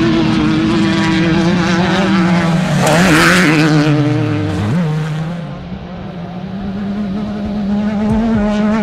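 Off-road desert race vehicle engines running at speed. About three seconds in, one goes by loudly with a burst of rushing noise and its note falls in pitch. Then an engine note picks up again and holds steady to the end.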